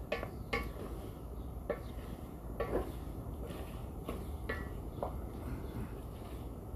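Wooden spatula stirring minced bopis in a large aluminium pan, with irregular scrapes and knocks against the pan's side.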